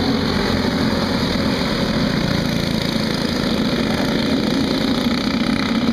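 A pack of racing go-karts running together around the oval, their small engines making one steady, unbroken drone.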